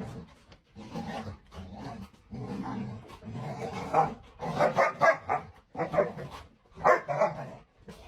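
A dog growling and barking, the barks becoming louder, sharper and coming in quick succession from about four seconds in.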